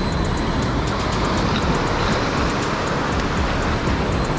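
Wind on the microphone and breaking surf make a steady rushing noise, with faint rapid ticking from the spinning reel's drag as a big fish pulls line off it.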